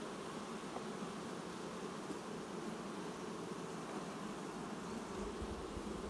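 Honeybees buzzing steadily over the frames of an open hive.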